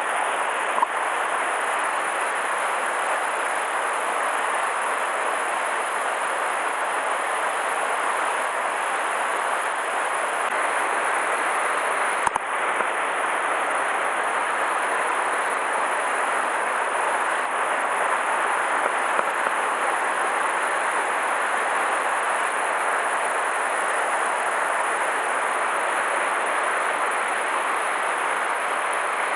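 Steady rushing of a river running high and swollen after a typhoon, with one sharp click about twelve seconds in.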